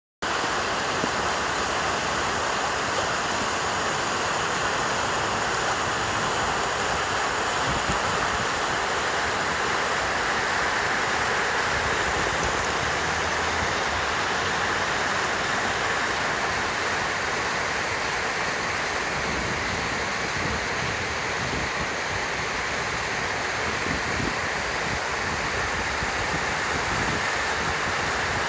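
Rushing water: a steady, unbroken noise that does not rise and fall.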